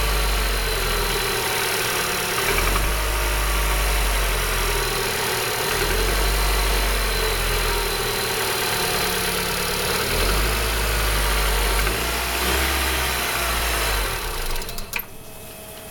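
Opel C20SED 2.0-litre four-cylinder petrol engine running with a knock, the fault the recording was made to show. The low hum swells and fades every couple of seconds, and the engine sound cuts off about a second before the end.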